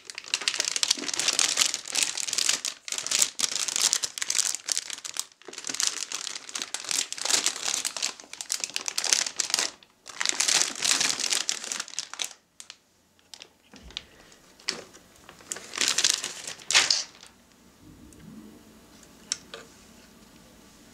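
Metallized anti-static bag crinkling and rustling as a motherboard is slid out of it: dense crinkling for about twelve seconds, then a few shorter rustles, settling to quiet for the last few seconds.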